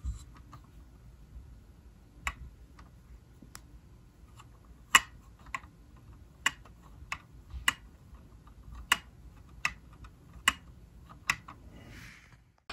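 Sharp plastic clicks from a Lego garbage truck's rear hopper mechanism being worked by hand: about a dozen separate clicks, irregularly spaced roughly a second apart, with a soft rustle near the end.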